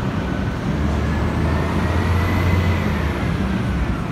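Street traffic with a heavy vehicle's engine running close by: a steady low hum, with a faint whine that rises and falls.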